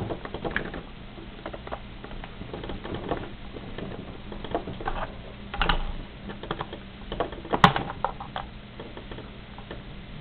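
Irregular small clicks, scrapes and taps of a tri-wing screwdriver working a screw in a plastic GameCube controller, with the controller shifting on a wooden tabletop. The sharpest knocks come about five and a half and seven and a half seconds in.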